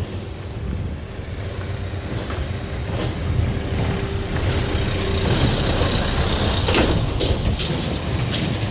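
Mobility scooter running along a path: a steady low rumble with a faint steady whine for a few seconds in the middle, getting a little louder toward the end.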